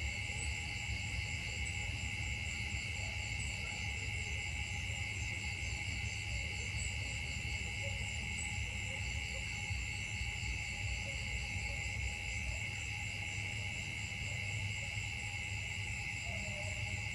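Steady chorus of insects: a continuous high-pitched buzzing with a fine pulsing shimmer, over a low steady rumble.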